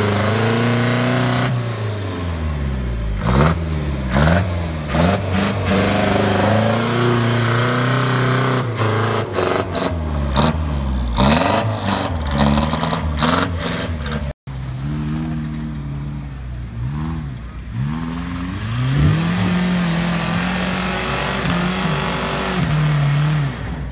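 Off-road 4x4 engines revving hard, over and over, the pitch rising and falling as the wheels spin through mud and water. The sound breaks off for a moment about fourteen seconds in. Then a Daihatsu Feroza's engine revs up and down in the same way.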